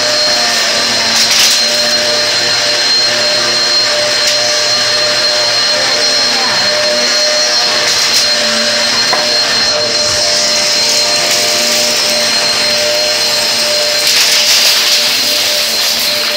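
Vacuum cleaner running steadily with a high motor whine over a rushing of air; the rush swells for a moment near the end.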